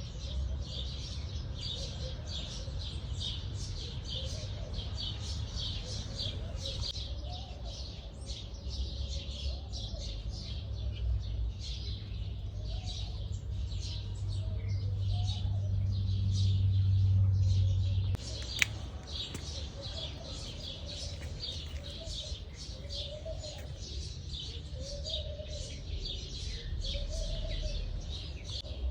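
Many small garden birds chirping in a dense, continuous chatter. A low rumble underneath swells to its loudest about two-thirds through, then cuts off suddenly, followed by a single sharp click.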